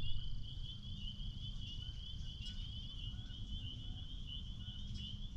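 A steady, high-pitched chorus of small calling animals trilling with a fast pulse, typical of crickets or frogs at dusk, over a low rumble on the microphone.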